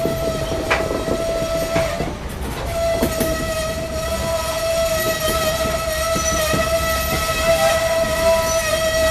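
Diesel locomotive horn sounding a long steady blast that breaks off briefly about two seconds in and then sounds again, held to the end. Under it are the low rumble and clanks of the moving train.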